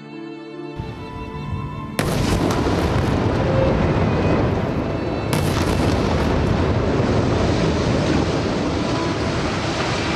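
Soft string music, cut across about two seconds in by a sudden loud airstrike explosion on a high-rise building, followed by a continuous loud rumble of blast and falling debris, with another sharp surge around five seconds in.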